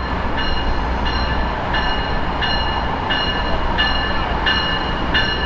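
Siemens Charger diesel locomotive leading a passenger train into the station, its engine rumbling low as the train rolls in, with its bell ringing in even strokes, about three every two seconds.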